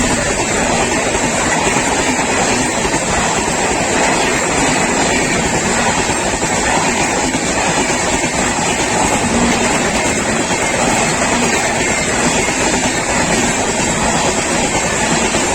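Rajdhani Express passenger coaches running past at speed, a loud, steady rush of wheels on the rails that does not let up.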